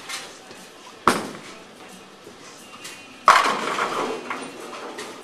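A Lane #1 Ripsaw bowling ball is released and lands on the lane with a sharp thud about a second in. A little over two seconds later it crashes into the pins, and the clatter dies away over about a second.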